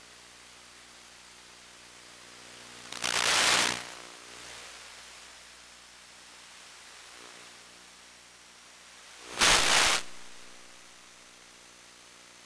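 Steady radio hiss with a faint hum on the audio channel of a 1.3 GHz analog FPV video link, with no microphone sound. It surges into two loud bursts of static, about three seconds in and again about six seconds later.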